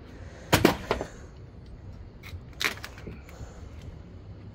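Sharp wooden knocks and clatters, a quick cluster of three about half a second in and one more near three seconds: freshly sawn silver maple boards being flipped and set down.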